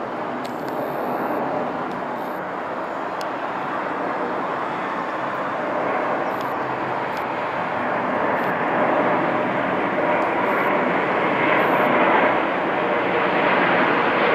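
Airbus A350-900 airliner on landing approach with its gear down, passing low overhead: its twin Rolls-Royce Trent XWB turbofans and airframe give a steady jet rush that grows louder as it comes closer.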